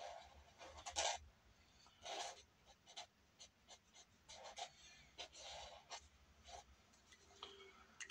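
Pencil drawing on paper: faint, short, irregular scratching strokes as a sketch is drawn.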